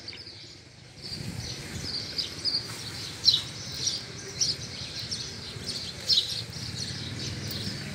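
Small birds chirping, short high chirps repeating every second or so, over a low steady rumble.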